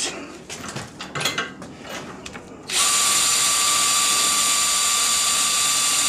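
A few faint clicks and knocks, then about two-thirds of the way in a Ryobi drill suddenly starts and runs at a steady speed with a steady whine. It is driving a wire brush against the rim of a ceiling fan converted into a permanent magnet alternator, spinning it at about 100 RPM for a bench test.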